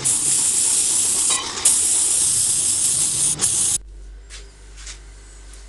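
Paint being sprayed onto a motorcycle fuel tank: a loud, steady hiss, broken briefly twice, that stops abruptly about two-thirds of the way through, leaving faint room noise with a low hum.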